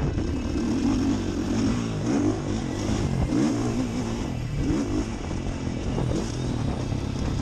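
Gas Gas MC 450F four-stroke single-cylinder motocross engine under way on a dirt track. The revs drop and then climb again several times as the throttle is shut off and opened up between corners.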